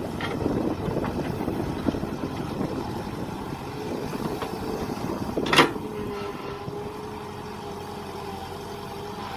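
Mini excavator's engine running, uneven at first and then settling into a steady hum with a held tone. One short sharp noise sounds about five and a half seconds in.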